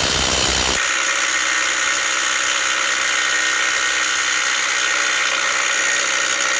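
Milwaukee M18 Fuel 2753-20 1/4-inch hex cordless impact driver hammering continuously on a grade 10.9 track bar bolt through a wobble extension and half-inch socket. The sound changes about a second in, then runs steadily at a higher pitch. The seized bolt, which an air impact gun could not turn, comes loose under it.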